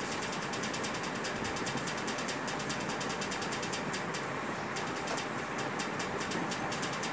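Rapid, even mechanical ticking, several ticks a second, over a steady rushing noise, pausing briefly a little past four seconds in, while a whiteboard is wiped with a duster.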